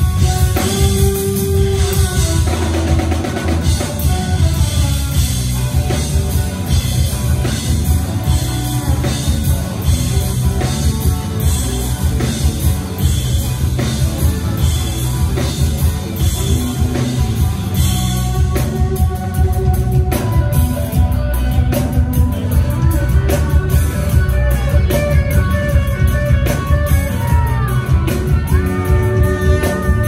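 Live rock band playing loudly: a drum kit keeping a steady, driving beat under heavy bass and electric guitar.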